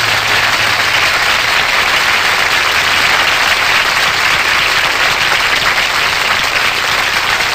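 Studio audience applauding steadily, with the band's last chord dying away in the first second.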